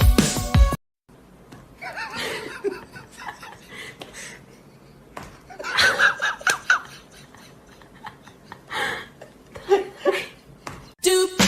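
Music cuts off under a second in, then a person laughs and snickers in short bursts.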